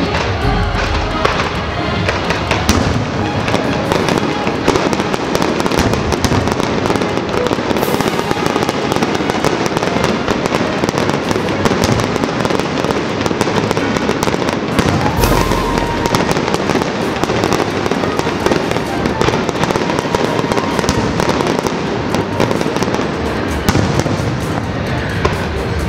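Fireworks display: a dense, unbroken barrage of aerial shell bursts, many overlapping bangs with no pause between them.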